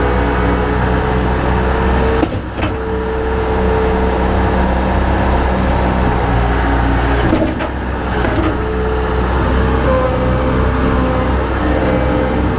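An engine running steadily with a constant droning tone, briefly dipping twice.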